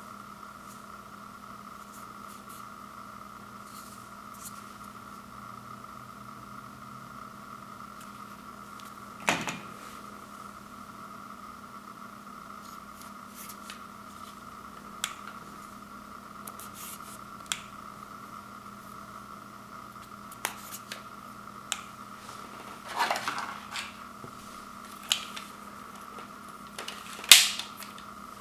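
Scattered plastic clicks and knocks from handling a Zuru X-Shot MK3 toy dart blaster and its foam darts, the loudest near the end, over a steady background hum.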